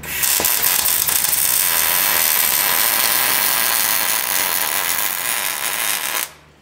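Miller Millermatic 255 MIG welder arc running a bead, a steady loud crackle that cuts off suddenly about six seconds in. The auto-set is on 1/8-inch material, which the welder judges to be the right setting.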